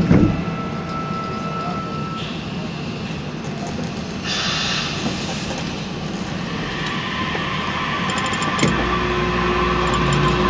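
Osaka Metro series 70 linear-motor subway train running through a tunnel, heard from inside a motor car: a steady rumble of wheels, rails and tunnel. About nine seconds in a steady hum joins it and the noise grows a little louder.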